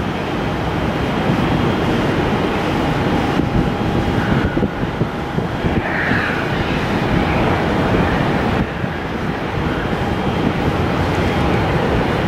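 Saab 340B's two turboprop engines running at low power as it taxis onto the runway, a faint steady whine under heavy wind buffeting on the microphone.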